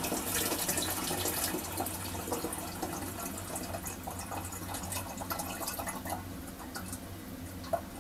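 Toilet cistern refilling after a flush: water running and trickling with small drips, slowly fading. A short sharp click near the end.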